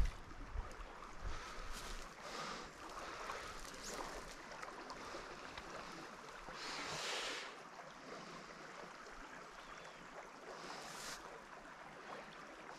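Faint, steady wash of a small mountain brook's current, with a few brief soft swishes, the longest about seven seconds in.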